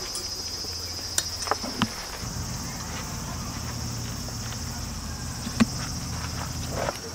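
Cicadas singing in a steady high-pitched chorus. A few sharp clicks break in, the loudest about five and a half seconds in, and a low hum comes in about two seconds in.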